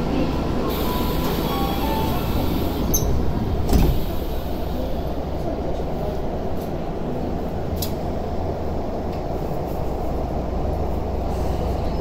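Tokyu 5050 series train doors closing at a station stop: a few short tones, a click, then a heavy thump as the doors shut just before four seconds in. After that, the steady low hum of the stopped train.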